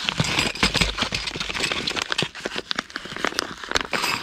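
Yellow bubble-padded mailer envelopes being handled and opened by hand: paper and bubble-wrap lining crinkling, with a quick irregular run of small crackles.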